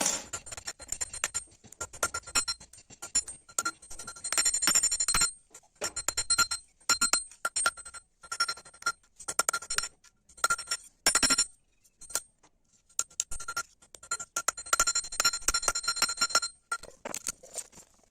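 Quick runs of light metal-on-metal strikes, each leaving a bright ringing tone, broken by short pauses.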